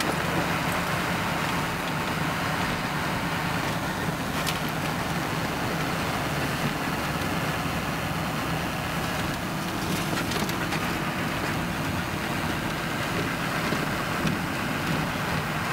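Steady engine and road noise heard from inside a moving vehicle's cabin, with a low engine hum and a few faint clicks or rattles.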